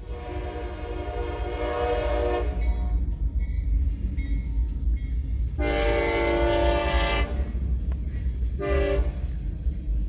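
Locomotive air horn sounding two long blasts, a short one, then a third long one starting near the end: the standard warning for a grade crossing. A steady low rumble runs underneath.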